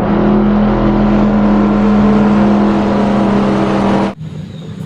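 Race car engine sound effect: a loud, steady engine note that cuts off suddenly about four seconds in.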